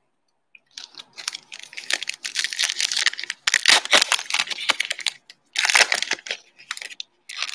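Foil wrapper of a Panini Mosaic basketball card pack crinkling and tearing as the pack is opened: a dense run of crackles from about a second in, then a shorter burst near the end.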